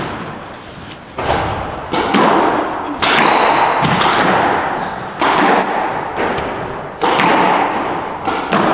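Squash rally: the ball is struck by rackets and smacks off the court walls about once every second or two, each hit ringing in the enclosed court. Sneakers squeak on the wooden floor in between.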